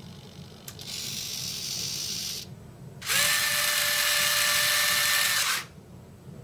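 Electric RC landing-gear system cycling down: a click, then the gear-door mechanism whirring for about a second and a half, and after a short pause the electric retracts whirring louder with a steady whine for about two and a half seconds as the wheels swing down.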